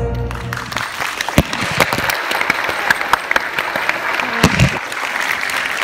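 The last chord of the dance music fades out within the first second, giving way to audience applause, a dense patter of many hands clapping. A single voice calls out briefly about four and a half seconds in.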